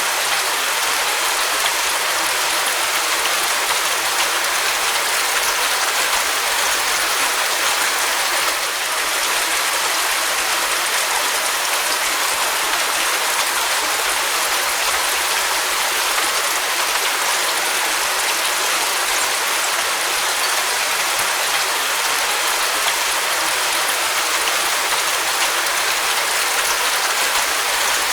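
Steady rain falling, an even hiss of many drops with no separate impacts standing out.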